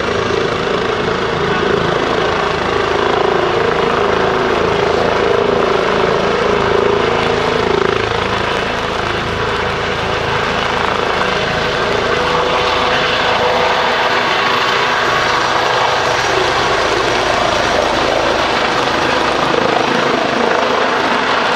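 Eurocopter EC135 P3 helicopter with its twin turboshaft engines and rotors running at high power, a steady, loud turbine and rotor noise as it lifts off into a hover about halfway through.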